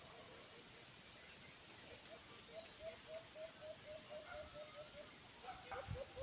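A dove calling a run of short, low, rising hoots, about three a second, starting partway in, breaking off and resuming near the end. An insect buzzes high in short half-second bursts, three times, about two and a half seconds apart.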